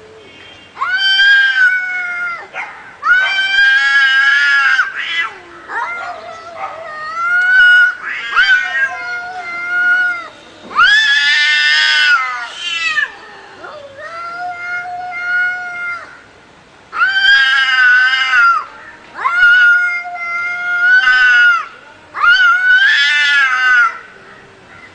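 Domestic cats caterwauling in a fight standoff: a string of long, drawn-out yowls that waver up and down in pitch, one after another with short pauses between.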